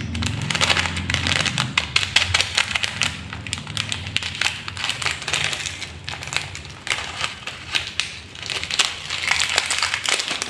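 Crinkling and crackling as crispy fried shallots are shaken from a plastic packet and sprinkled over fried noodles: a dense run of quick, irregular clicks, with a faint low hum beneath.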